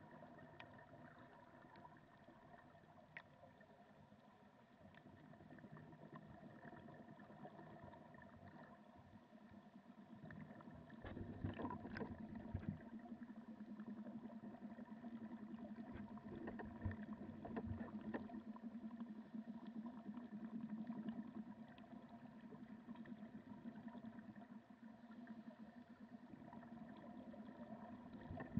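Faint, steady motor hum heard underwater, with a few fixed tones and scattered short clicks. It grows louder about eleven seconds in.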